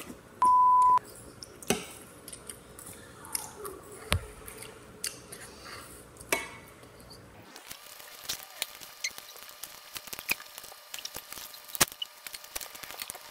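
A steady electronic beep of about half a second near the start, then close-up eating sounds: many small wet mouth clicks, smacks and squishy chewing.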